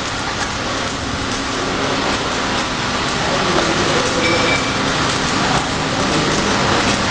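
Hydraulic tyre baler running: a steady, loud mechanical noise with scattered faint clicks and a brief high tone about halfway through.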